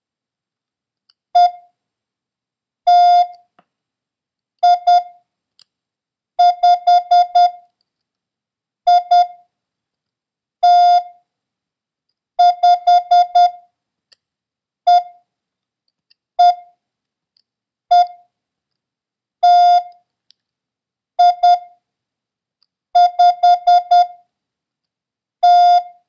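Morse code practice tone, a steady beep keyed in dots and dashes, sending single characters with long gaps between them for copying: the letters E, T, I and the number 5 (one dot, one dash, two dots, five dots).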